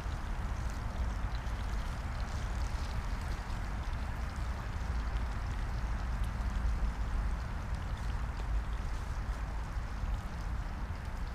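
Steady rushing noise with a low rumble, like wind buffeting the microphone, with faint scattered ticks over it.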